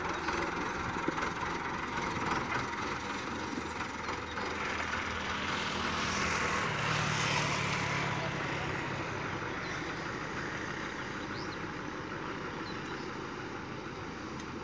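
Fiat 640 tractor's four-cylinder diesel engine running steadily as it pulls a loaded trolley along a dirt track, growing louder to its loudest about seven seconds in, then fading as it moves away.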